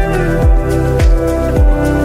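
Electronic background music with a kick drum beating about twice a second over sustained synth tones and a bass line.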